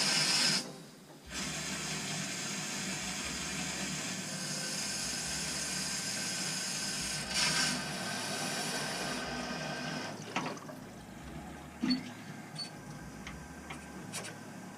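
Water rushing through an opened valve into the Navien combi boiler's piping as the system is refilled after a pump change. It stops briefly about a second in, runs steadily with a louder spurt, and eases off after about ten seconds, followed by a few light clicks.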